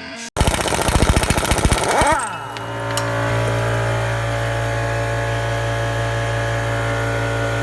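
A motor-driven machine: a burst of rapid loud pulses that falls in pitch about two seconds in, then settles into a steady hum until it cuts off.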